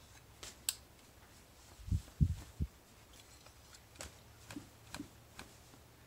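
Handling noise from a metal wallet belt buckle with a card in it being shaken hard to knock the card loose: scattered light clicks, with a few dull thumps about two seconds in.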